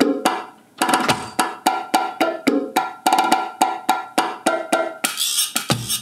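Percussion samples from a Roland Octapad SPD-30 struck with drumsticks, playing a bachata-style pattern of pitched hand-drum hits about three a second. Deep thumps come about a second in and near the end, and a brief bright hiss sounds just before the end.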